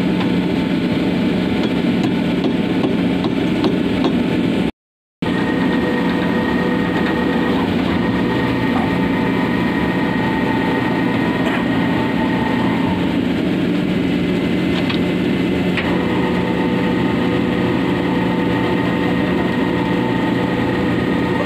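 Ship's engine running with a steady, loud drone. After a brief cut-out about five seconds in, a higher steady whine rides on top, stopping and starting again a couple of times.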